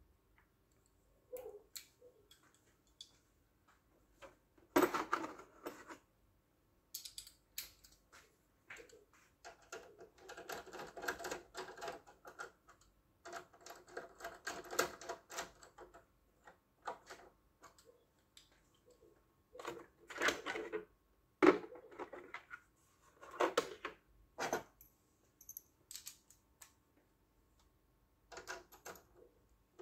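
Irregular clicks and taps of small hard parts and hand tools being handled, with two longer spells of rapid clattering in the middle.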